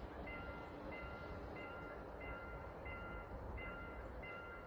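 Railway level-crossing warning bell ringing, an electronic ding repeating steadily about every two-thirds of a second, the signal that a train is approaching.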